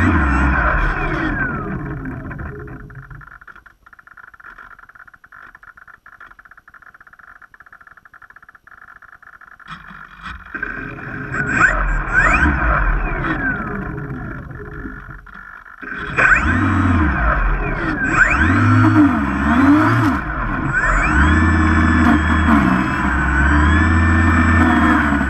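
Twin brushless electric motors and propellers of a Great Planes Catalina PBY model flying boat, heard from on board. The motors ease down to a faint whine for several seconds, spool up again about ten seconds in, drop briefly, then run loudly from about sixteen seconds in, the pitch wavering as the throttle changes.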